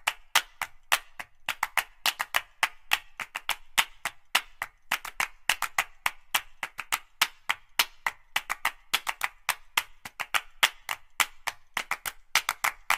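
Background music track, here only a quick rhythm of sharp percussive clicks, about four a second.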